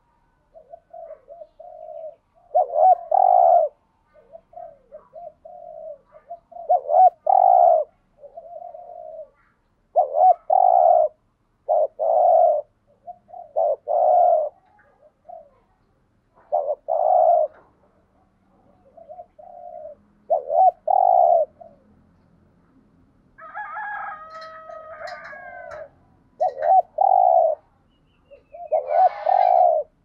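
Spotted dove cooing: repeated groups of short and longer low coos, the full territorial song with quick rapid-coo runs.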